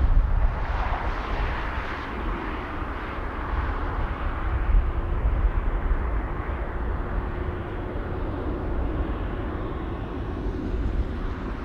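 Airbus A350 jet airliner's engines running: a steady rumble with a hiss above it, and a faint steady hum coming in about four seconds in.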